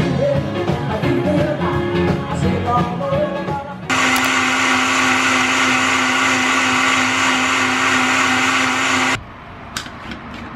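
Live band music with singing for about the first four seconds. Then a Breville Blend Active personal blender runs steadily for about five seconds, blending a green smoothie, and cuts off suddenly. A couple of clicks follow as the bottle is taken off the motor base.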